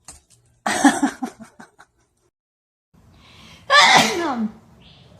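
A sneeze-like burst trailing off in quick fading pulses, then, about three seconds later, a short pitched call that falls in pitch.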